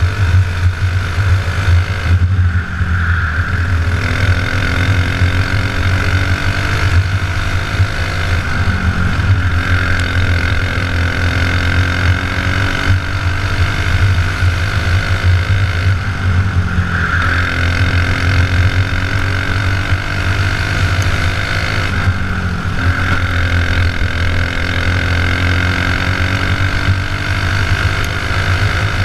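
Racing kart engine heard from on board, running hard around a dirt oval: its pitch climbs steadily down each straight and drops sharply as it lifts for each turn, several times over.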